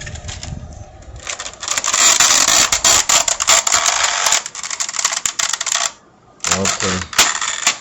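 Plastic toy gun being loaded: dense clicking and rattling of plastic parts for several seconds, then a few more clicks near the end.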